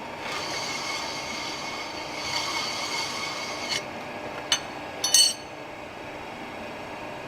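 Metal parts rubbing or scraping for about three seconds, then a single sharp knock and a quick pair of ringing metallic clinks near the end.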